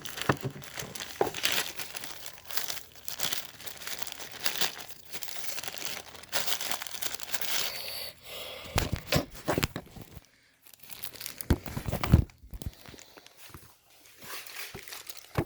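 Packaging being crinkled and torn open by hand during an unboxing, an irregular run of crackling with a few dull knocks of handling in the second half.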